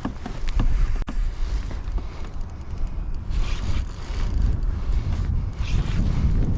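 Wind buffeting the microphone with a heavy, uneven rumble, stronger in the second half. Brief mechanical scraping bursts from a spinning reel come a little past halfway and again near the end, as a hooked fish is played.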